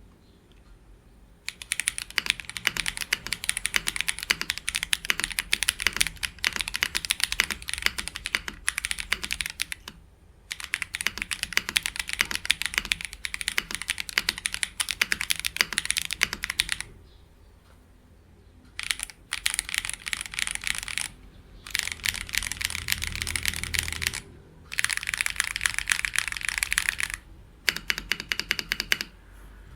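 Mechanical keyboard typing on a QK65 fitted with lubed Gateron Beer light-tactile switches. It comes as fast runs of keystrokes that start about a second and a half in, broken by a few short pauses.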